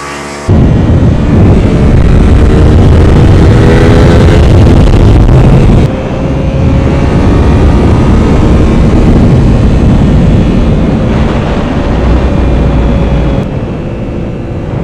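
Motorcycle riding heard from a helmet-mounted mic: heavy wind rush over the Yamaha FZ-07's parallel-twin engine. The rush comes in suddenly about half a second in, the engine pitch climbs as it accelerates, then holds a steady tone at cruise and eases a little near the end.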